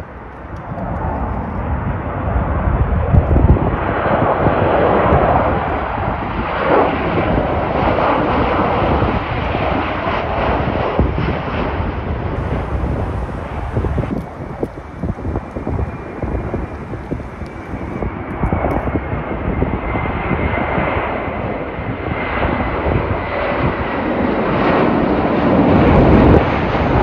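Jet airliners with landing gear down passing low overhead on approach to land: a steady jet engine roar, with a faint high whine in the second half that slowly falls in pitch.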